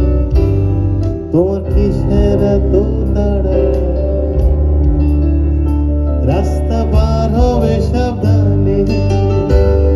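Live band music: loud bass and drums under a melodic lead line that glides and bends in pitch.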